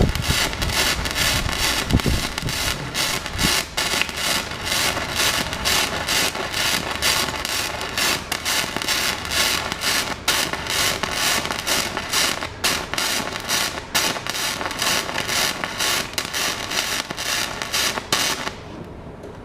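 Flux-core MIG welding arc from a Magmate 150 welder: a continuous loud crackle and sputter as wire is fed and burned into the weld, stopping suddenly about a second before the end when the trigger is released.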